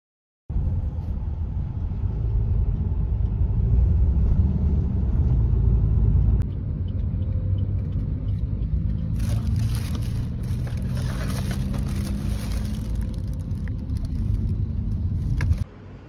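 Steady low rumble of a car on the move, heard from inside the cabin. From about nine seconds in a plastic takeaway bag crinkles over it, and both cut off sharply just before the end.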